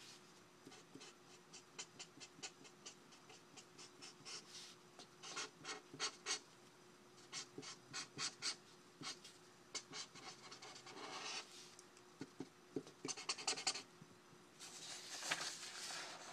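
Faint scratching of a marker drawn across paper in many short, quick strokes. Near the end the sheet of paper rustles as it is picked up.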